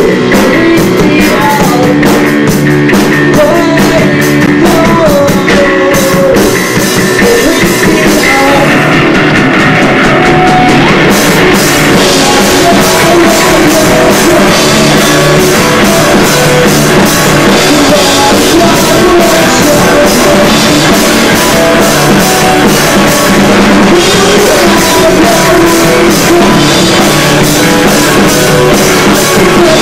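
Loud live rock band: electric guitar and a PDP drum kit playing continuously, with a singer on top, picked up by a camcorder's built-in microphone.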